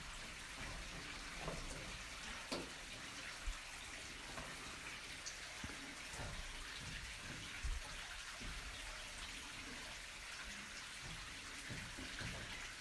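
A few scattered knocks and dull thuds of boots and hands on a wooden mine ladder as a climber goes down it, over a faint steady hiss.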